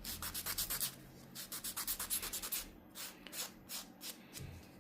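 A nail file rasped in quick back-and-forth strokes, about four or five a second with brief pauses, across a dried fake-nail repair to shape it.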